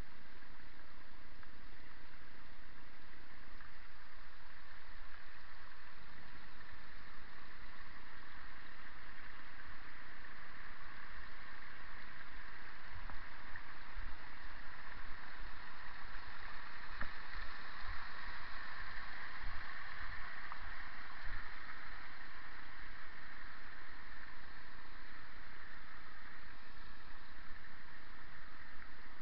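Steady rushing of a mountain torrent, an even hiss of running water that grows a little fuller around the middle, with a scattering of low thumps in the middle stretch.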